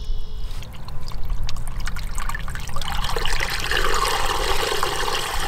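Muddy standing water gurgling and pouring down through a hole punched into a buried plastic field drainage tile, the flooded pit draining fast. It grows louder about three seconds in.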